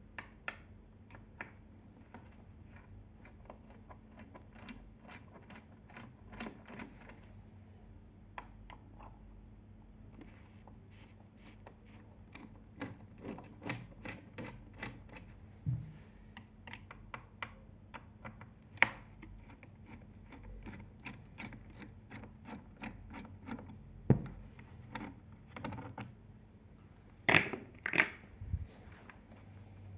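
Work on a Revox A77 reel-to-reel tape recorder's back casing: scattered small clicks, scrapes and rubbing of hands and tools, with a few sharper knocks, loudest near the end.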